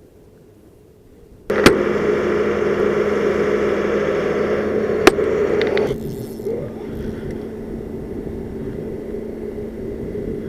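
A boat's motor comes in suddenly about a second and a half in with a sharp click and runs steadily with a pitched hum. There is a second click near the middle, and about six seconds in it drops to a lower, quieter steady hum.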